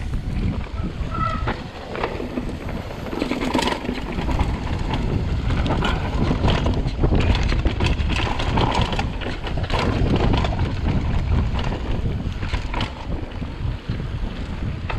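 Wind buffeting the camera microphone while a mountain bike is ridden fast down a dirt trail, with steady tyre rumble and many short rattles and knocks from the bike jolting over bumps.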